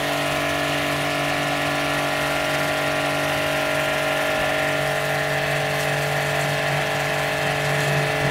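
StarQ W3 1800-watt electric high-pressure washer running steadily under load, a constant motor-and-pump hum with the hiss of its spray jet hitting the wall.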